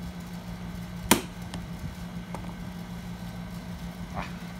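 One sharp metallic whack about a second in, a screwdriver held against the cap of a Toyota door lock cylinder being struck to seat the cap, followed by a few faint clicks. A steady low hum runs underneath.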